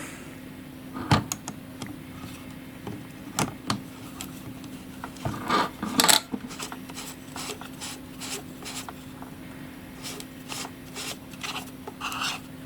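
Scattered small clicks, taps and rustles of a camcorder wide-angle lens attachment and its packaging being handled, loudest about six seconds in, over a faint steady hum.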